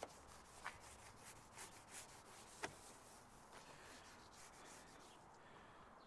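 Faint, smooth rubbing of a Work Stuff synthetic rubber clay mitt sliding back and forth over car paint, no longer gritty now that the contaminants are lifted off, with a few light ticks; it dies away near the end.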